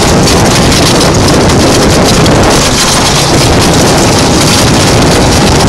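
Loud, steady wind noise rushing over a phone's microphone on a moving go-kart, mixed with the kart's running.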